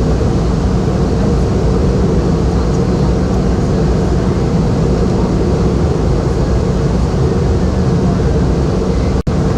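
Steady cabin drone of a Boeing 717 in flight: its two rear-mounted turbofan engines and the airflow over the fuselage, heard from inside the passenger cabin. The sound cuts out for a split second near the end.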